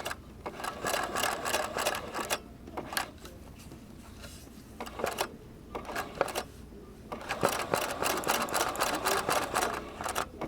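Bernina sewing machine stitching in several bursts of rapid needle strokes with short pauses between, the longest burst in the second half.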